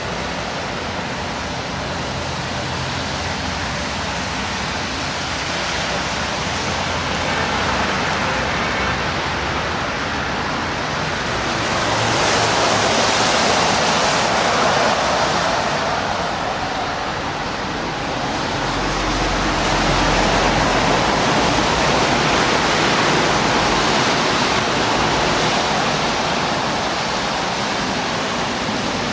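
Steady rushing city traffic noise, tyres hissing on wet, slushy roads. It swells twice as vehicles pass, the second time with a low rumble from a heavier vehicle.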